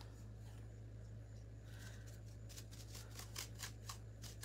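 Paintbrush dry-brushing across a black metal lantern: quick, faint scratchy strokes, about four a second, starting about halfway in, over a steady low hum.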